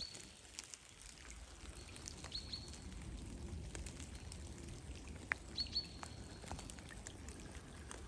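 Faint birdsong: a small songbird gives short high notes, one or two at a time, every two to three seconds, over scattered light ticks of rain dripping in the woods.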